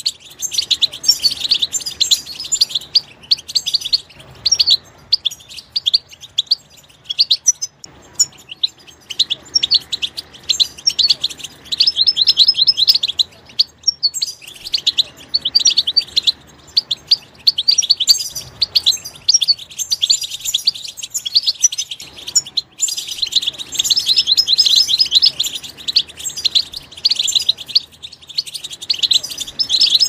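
European goldfinch singing: phrases of fast twittering chirps, each a few seconds long, broken by short pauses.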